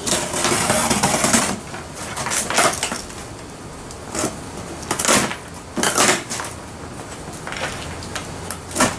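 Cardboard box and packaging being handled: a long scraping rustle over the first second and a half, then separate knocks and rustles about once a second.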